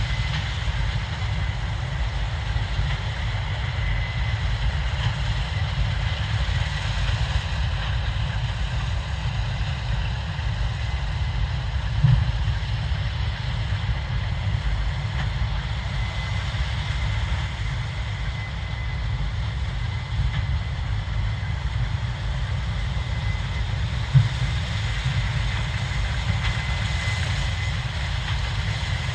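Case IH 7230 Axial-Flow combine running steadily, its 8.7-litre six-cylinder diesel giving a deep drone under a thin steady whine from the machine. Two brief knocks stand out, one near the middle and one toward the end.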